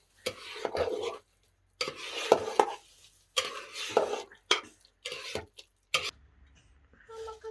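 A metal utensil stirring and scraping in a cooking pot: four strokes of about a second each, with short clinks, and a single sharp clink about six seconds in.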